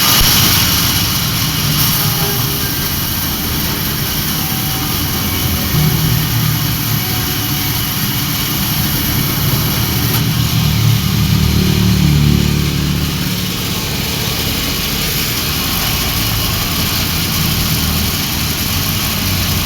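Timber bandsaw with a 7 cm-wide blade running steadily during a test run. Its low hum grows heavier for several seconds in the middle.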